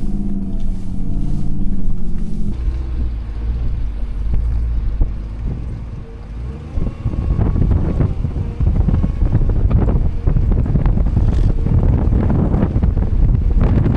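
Truck engine running, with wind buffeting the microphone, growing rough and gusty from about seven seconds in.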